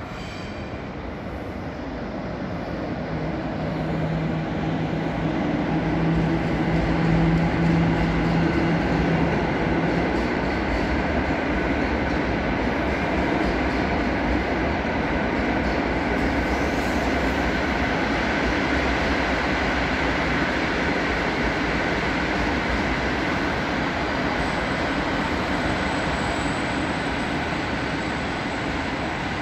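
Passenger train hauled by an EP09 electric locomotive running through the station: a continuous rumble of wheels on rails that builds over the first several seconds and then holds steady, with a low steady hum for several seconds early on.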